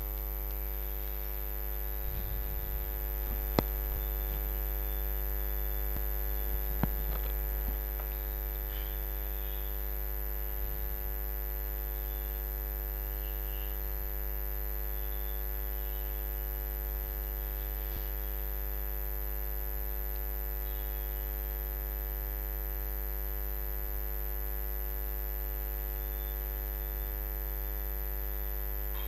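Steady electrical mains hum and buzz in the recording, unchanging throughout, with a few soft clicks in the first eight seconds, the sharpest about three and a half seconds in.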